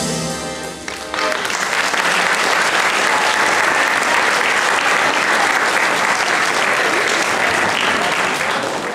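Audience applauding steadily for several seconds, starting about a second in as the held final chord of the music dies away.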